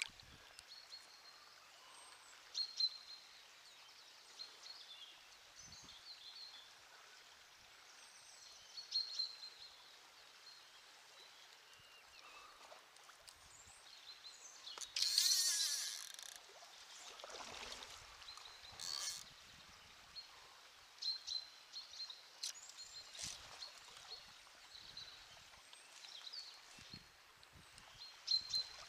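Small birds chirping in short repeated phrases over the soft rush of a flowing river, with a brief loud burst of noise about halfway through.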